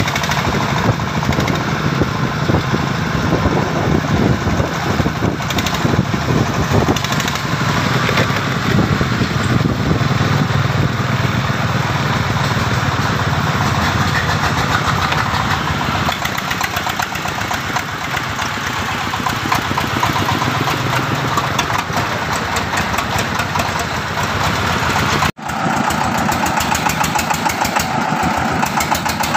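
Diesel engines of mobile rice-mill trucks running as they drive in convoy, a steady fast chugging. The sound breaks off abruptly about 25 seconds in and resumes with another rice-mill vehicle's engine chugging close by as it pulls past.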